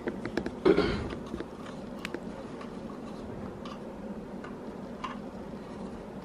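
Plastic clicks and knocks from a new coffee machine being unpacked and its parts handled. A louder rustling clatter comes just under a second in, then scattered light ticks, over a low steady hum.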